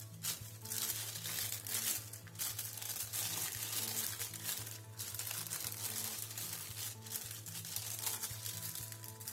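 Thin plastic sheet crinkling and rustling continuously as gloved hands squeeze and gather a crumbly activated-charcoal cleanser dough inside it.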